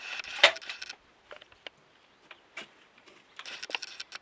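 Shotgun and cartridges being handled between shots: scattered clicks and rustles, with one sharper knock about half a second in.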